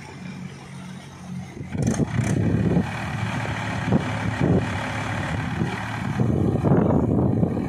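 Mahindra 475 DI tractor's four-cylinder diesel engine running, faint and steady at first, then much louder and rougher from about two seconds in.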